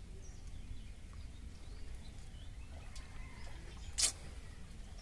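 A steady low outdoor rumble with faint bird chirps, and about four seconds in a single short, sharp crackle as a plastic bottle trap is worked open in the hands.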